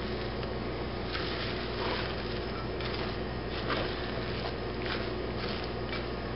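Soft wet squishes and light taps from hands tossing egg-soaked bread cubes and bacon in a glass bowl, a few scattered strokes at a time, over a steady low hum.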